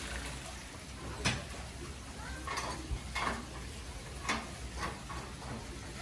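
Several sharp clicks and knocks, spaced about a second apart, over a steady background hiss.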